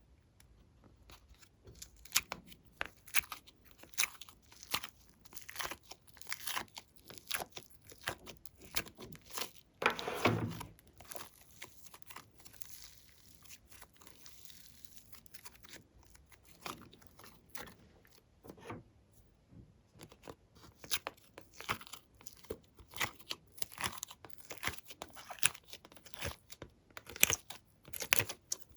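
Glossy slime being worked by hand, giving off irregular sharp clicking and crackling pops, with one louder, longer squelching sound about ten seconds in.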